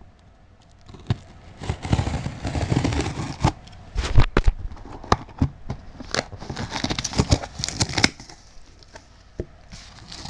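A knife blade cutting through packing tape on a cardboard box: scratchy tearing and scraping with many sharp clicks and knocks as the cardboard is handled. It starts about a second in and eases off near the end.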